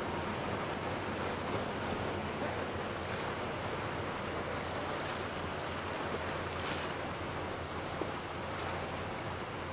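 Small ocean waves washing and lapping in the shallows: a steady rush of water, with a few brief louder splashes.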